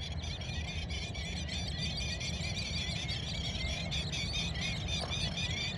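A flock of birds calling continuously in a dense chatter of short, high, squeaky notes, over a low rumble.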